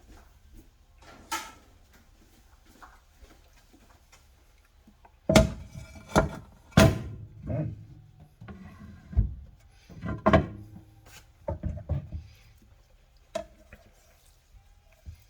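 Kitchen clatter: a series of sharp knocks and clinks, some with a short ring, coming in a busy run from about five seconds in to about twelve seconds.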